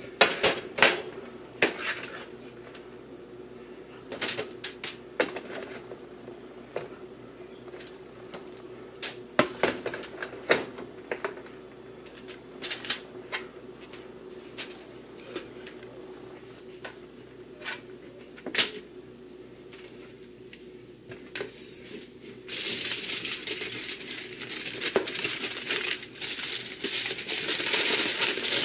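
A serving spoon knocking and scraping against a bowl as food is scooped out onto aluminum foil, in scattered clacks over a faint steady hum. About two-thirds in, loud continuous crinkling of aluminum foil as it is folded and crimped around the food.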